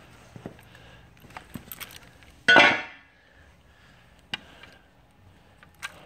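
Unpacking noises: light clicks and knocks as steel backhoe attachment parts and their packaging are handled. About two and a half seconds in comes one louder, short scrape that fades within half a second.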